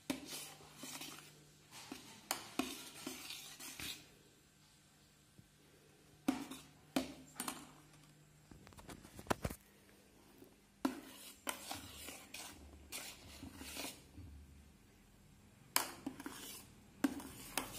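Steel spoon stirring milk into mashed melon pulp in a stainless steel bowl, clinking and scraping against the bowl's sides in spells of a few seconds with short pauses between.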